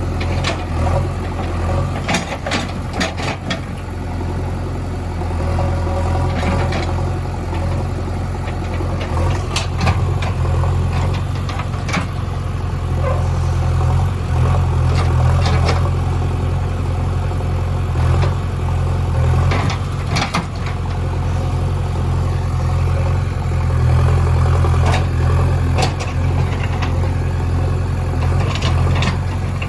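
A heavy diesel engine of farm or construction machinery running steadily, with short sharp knocks and clicks scattered throughout.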